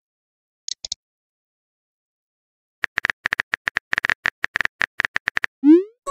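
Simulated phone-keyboard typing clicks from a texting-story app, a rapid run of short taps, followed near the end by a short rising swoosh as the message sends. A brief, high triple click comes about a second in.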